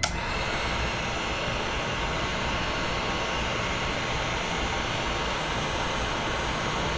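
Heat gun switched on and blowing hot air, a steady hiss of its fan and airflow that starts suddenly at the beginning.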